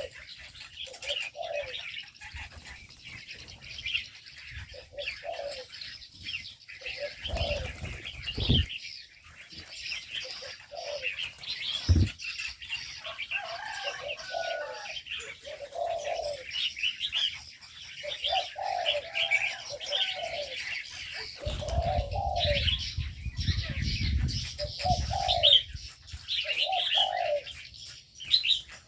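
Spotted doves cooing over and over in an aviary, with smaller birds chirping higher up. There is a low rumble twice, the longer one a few seconds before the end, and one sharp knock partway through.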